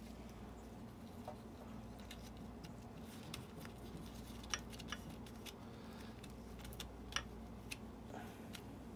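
Faint, scattered clicks and taps of gloved hands working gasket sealer onto the metal gear case of an outboard lower unit, over a steady low hum.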